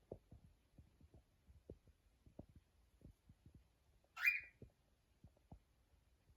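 A cockatiel gives one short, high call with overtones about four seconds in, over a run of faint irregular taps and knocks.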